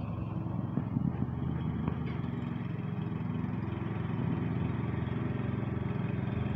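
A small lawn mower engine running steadily at a constant speed, with a few brief knocks about a second in.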